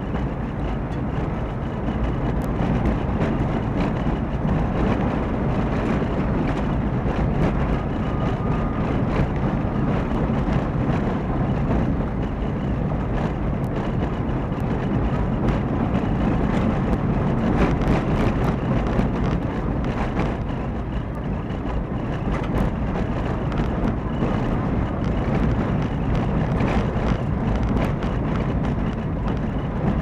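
Car driving on a mountain forest road, heard from inside the cabin through a dashcam: steady road and tyre noise over the engine's hum, with scattered small clicks and knocks throughout.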